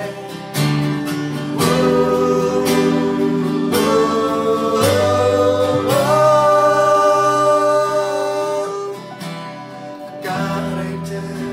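Men's voices singing together in long held notes over a strummed acoustic guitar and electronic keyboard.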